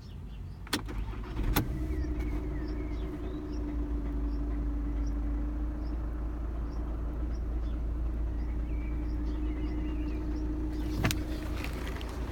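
2.0 TDI diesel engine of a VW Passat B7 with DSG gearbox running steadily, a low rumble with a constant held tone above it, after two sharp clicks in the first couple of seconds and with another click near the end. The noise is what the owner puts down mostly to the dual-mass flywheel, as on many Passats.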